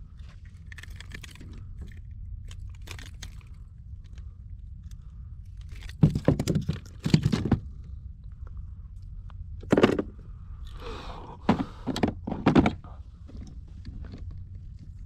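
Thuds and knocks on a kayak, in two clusters about six and ten seconds in, over a steady low rumble.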